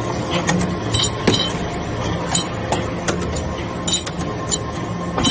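Hydraulic metal-chip briquetting press running with a steady hum, overlaid by irregular sharp metallic clinks, one or two a second, as chips are compacted and briquettes pushed out.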